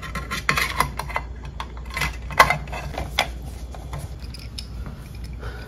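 Scattered small clicks and knocks of hands fitting a dishwasher's metal junction-box cover and handling a screwdriver, with one sharper knock about two and a half seconds in.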